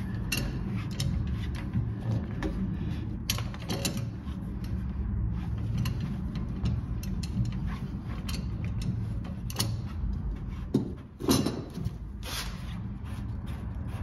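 An old plastic water-heater drain valve being unscrewed with slip-joint pliers and then by hand: scattered clicks, scrapes and knocks of the pliers' jaws and the valve's threads, with a louder clatter about eleven seconds in. Under it runs a low gurgling, air getting into the tank as the valve comes loose.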